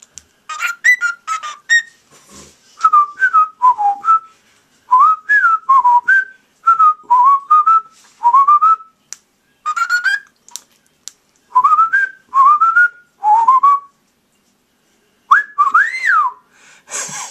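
Cockatiel whistling: a long run of short, sliding whistled notes that rise and fall, strung into phrases with brief pauses between them, with soft clicky chatter around the notes.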